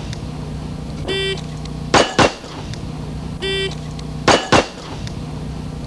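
An electronic shot-timer start beep, followed in under a second by two pistol shots fired in quick succession, a fast draw and double tap. The cycle happens twice over a steady low hum.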